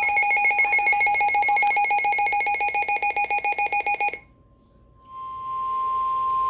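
Electronic alert beeping in rapid pulses for about four seconds, cutting off suddenly. After a short pause, a single steady alert tone starts about five seconds in: the weather-radio warning tone that comes before a severe weather message.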